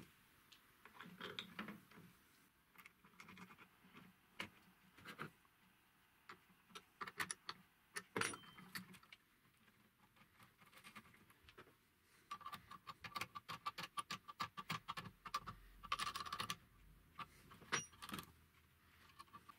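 Quiet metallic clicks and clinks of steel hex nuts and a threaded rod being handled and tightened by hand, with a quick run of ticking in the second half as a nut is spun along the thread.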